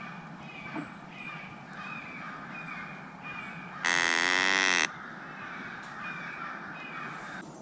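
Animal calls in the woods: a short, downward-sliding call repeating about twice a second. About four seconds in, one much louder, pitched call lasts about a second.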